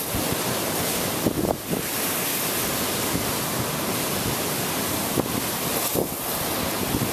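Storm waves surging and breaking in a continuous heavy roar, with gale-force wind buffeting the microphone in a few gusts.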